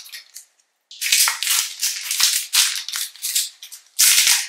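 Chocolate bar's plastic wrapper crinkling and tearing as it is pulled open by hand, in two spells: about two seconds starting a second in, then a short loud burst near the end.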